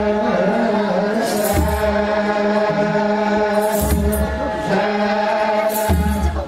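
Ethiopian Orthodox choir singing a mezmur (spiritual hymn) together as a chant, with a low thump and a high rattle landing together about every two seconds.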